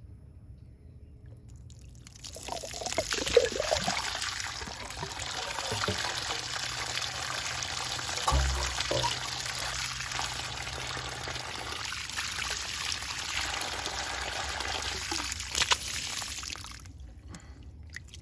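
Water gushing and splashing out of the spa's opened valve fitting, starting about two seconds in and stopping shortly before the end, with a few knocks from handling the parts.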